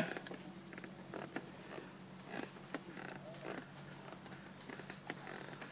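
Steady high-pitched drone of forest insects, with faint scattered knocks and rustles.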